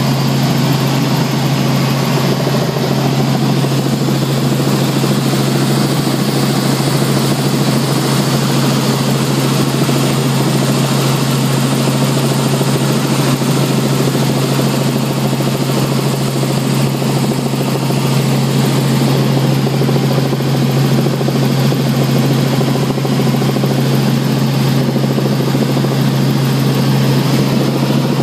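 Light helicopter in steady cruise flight, heard inside the cabin: the engine and rotors make a loud, unbroken drone with a constant low hum.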